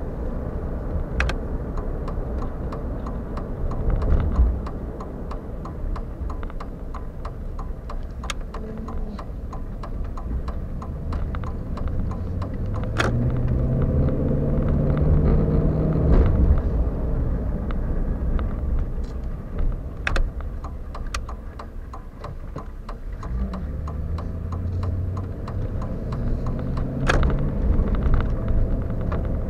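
Pickup truck engine and road noise heard from inside the cab while driving, the engine note rising in pitch twice as the truck accelerates from idle to about 2,000 rpm. Scattered light clicks run through it.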